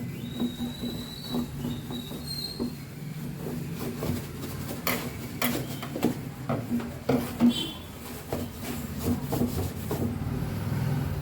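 A cloth wiping and scrubbing a greasy kitchen chimney hood, with irregular knocks, scrapes and rubbing against the metal over a steady low hum.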